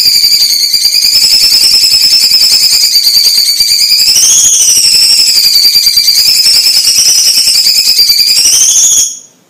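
Orange-bellied leafbird (cucak cungkok) singing one long, fast trill at a steady high pitch. The trill lifts briefly about four seconds in and stops abruptly about nine seconds in.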